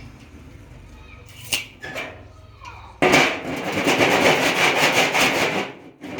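Two light clicks, then a loud rasping scrape with a fine rapid pulse that starts about halfway through and lasts nearly three seconds before stopping.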